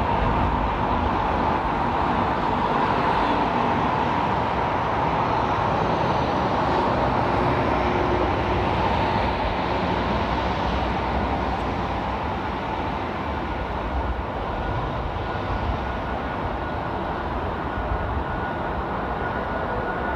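Boeing 747's four jet engines on a landing approach: a steady rushing noise with a faint high whine, easing off slightly in the second half.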